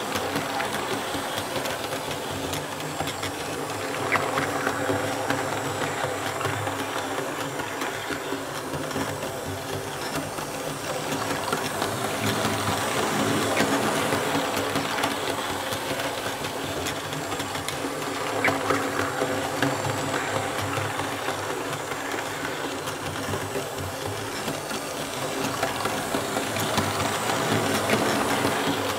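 Märklin H0 E41 model electric locomotive pulling two coaches around a loop of Märklin K-Track laid straight on a bare tabletop: a steady motor hum with rolling wheel and track rumble and a fine clicking over the rail joints, the table sounding along with the track. It grows louder about halfway through and again near the end as the train comes round the near side of the loop.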